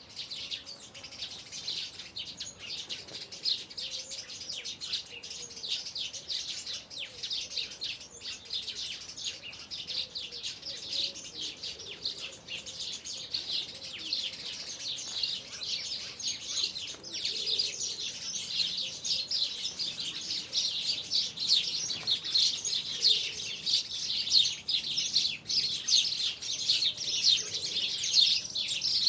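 Songbirds chirping and singing together in a dense, unbroken chorus of quick, high chirps, growing louder about halfway through.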